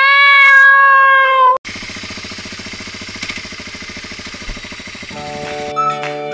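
A cat's meow, long and level in pitch, dropping slightly at the end, then a motorcycle engine running with an even throb. Music with a flute-like melody comes in near the end.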